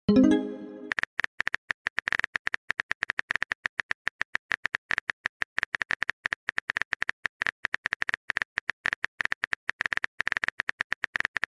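Phone-keyboard typing sound effect: a rapid, uneven run of sharp clicks. At the very start a short pitched message alert sounds.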